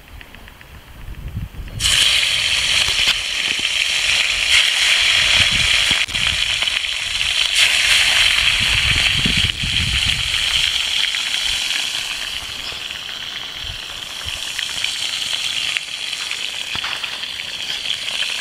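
Whole fish frying in a pan over a campfire: a steady sizzle that starts suddenly about two seconds in, as the fish go into the hot pan.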